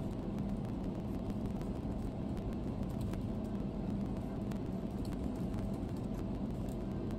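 Steady low rumble of a moving vehicle, with a faint hum and a few light ticks.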